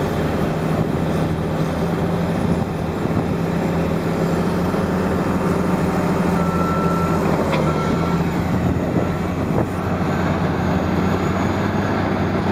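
Caterpillar bulldozer diesel engines running steadily, with a reversing alarm beeping in short, uneven bursts from about halfway through.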